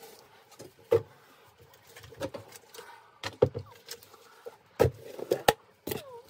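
Plastic containers handled on a workbench: a string of sharp knocks and clicks as a plastic jug is moved and the snap-on lid of a plastic tub is prised off, with a short falling squeak near the end.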